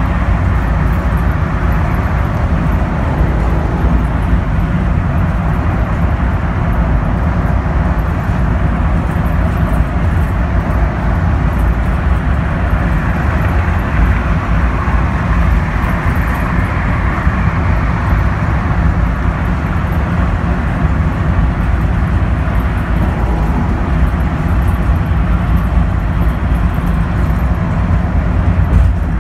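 Steady drone of a NABI 42-BRT transit bus heard from inside the cabin while cruising at freeway speed: its Cummins Westport ISL G natural-gas engine running steadily under the rush of road and tyre noise.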